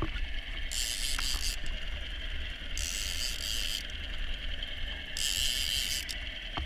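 Outboard motor of a small inflatable boat running steadily at slow trolling speed: a low rumble with a steady whine above it. A high hiss comes and goes three times, each for about a second.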